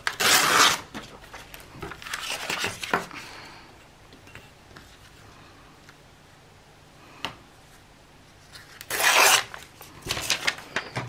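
Paper being handled, rustling in short bursts, with two louder bursts of about a second each, one at the start and one near the end.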